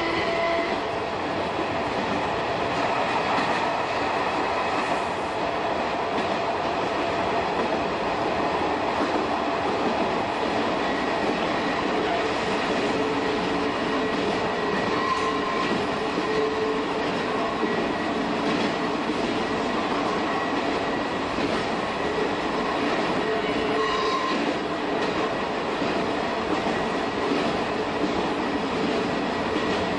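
Shin-Keisei 200 series electric train with nose-suspended traction motors, heard from the cab while running: a steady rumble of wheels on rail. A whining tone dies away about a second in and comes back from about twelve seconds in.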